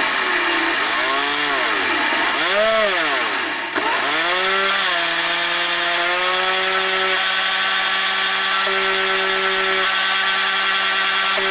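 Brushless outrunner motor spinning a jet-unit drive shaft through a plum (jaw) coupler, a high whine with a hiss. Its pitch rises and falls several times in the first few seconds, then holds steady at one speed. The motor is lifted by hand to test the mount alignment; it sounds rough under that pressure, which shows the mount as set is true.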